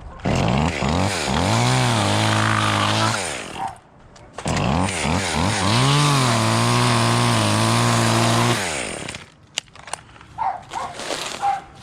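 Echo 2511T two-stroke top-handle chainsaw run up to high revs twice, each run wavering up and down in pitch, then held steady for a couple of seconds before the revs fall away. The second run is the longer; a few light clicks and rustles follow.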